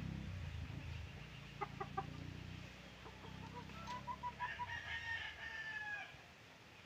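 A rooster crowing in the distance: a run of short notes, then a long held note that falls away, starting about three and a half seconds in. A few short clucks come earlier, over a low rumble that fades out in the first few seconds.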